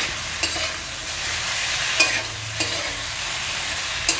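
Koi fish in mustard and poppy-seed paste sizzling in hot oil in a kadai while being stirred with a spatula, which scrapes and knocks against the pan a few times.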